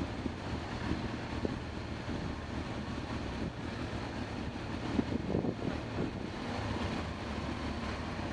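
Motorcycle engines idling and running at walking pace, a steady low hum, with a brief louder rise about five seconds in.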